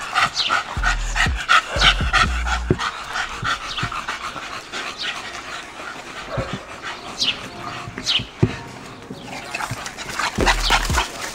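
French bulldog panting in quick rhythmic breaths, strongest in the first few seconds. There are a few low knocks of handling on the microphone and a couple of short, high, falling squeaks.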